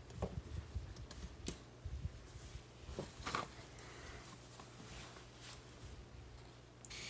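Faint clicks and knocks of a plastic VHS case being slid into a stack of tapes on a wooden cabinet shelf. Near the end a steady hiss starts suddenly: cooking noise from the kitchen.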